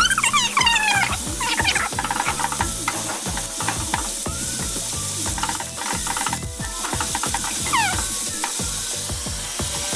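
Food sizzling in a frying pan, with stirring and scraping ticks, and short high squeaky chirps in the first two seconds and again about eight seconds in.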